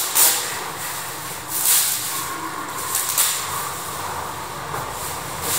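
Steady street background noise, a low rumble under a hiss, with a few brief louder hissing surges.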